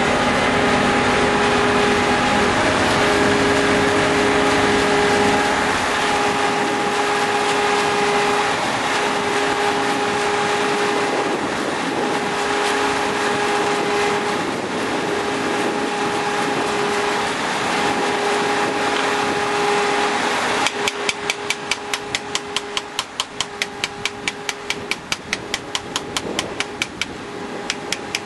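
A machine running with a steady hum, which about twenty seconds in gives way to a fast, regular knocking over a quieter hum.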